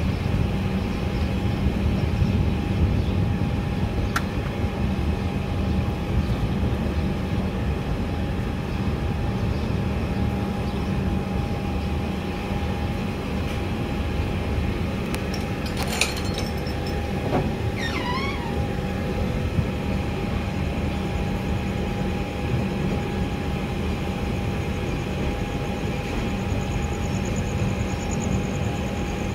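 Passenger train running: a steady low rumble with a constant hum, and a short cluster of clicks and squeaks a little past the middle.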